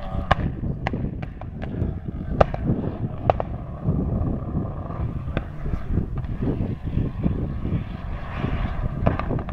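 Rally car's engine running hard on a gravel stage. A string of sharp cracks runs over it, most of them in the first three and a half seconds, then one more and a pair near the end.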